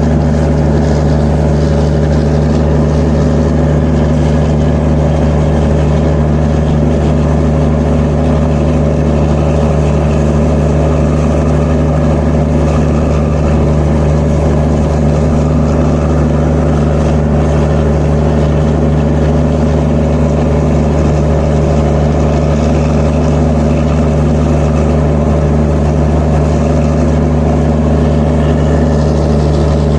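Diesel generator set in an Indian Railways train's generator (power) car running at a constant speed: a loud, steady engine hum with several even tones that does not change.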